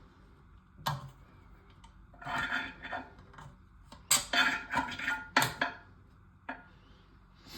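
Hard clicks and clattering of toilet tank parts being handled, in a few bursts, loudest about four to six seconds in.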